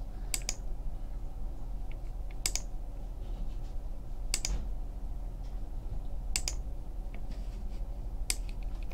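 Computer mouse clicking: five sharp press-and-release clicks about every two seconds, each one re-running a web page's list randomizer. A faint steady low hum lies underneath.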